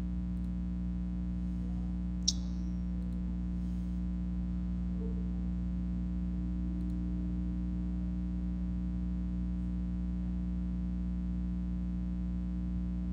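Steady electrical mains hum, with one short click about two seconds in.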